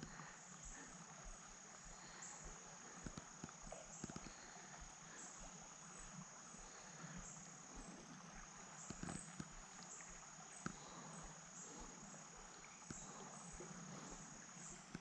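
Faint insect chorus: a steady high buzz with short chirps repeating about once a second, and a few faint knocks.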